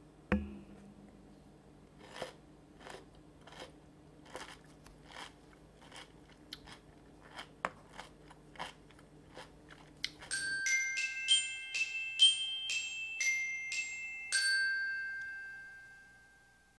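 A short melody of bright glockenspiel-like chime notes starts about ten seconds in, each note ringing on, and fades away near the end. Before it come a single sharp knock right at the start and a run of soft clicks about every 0.7 seconds.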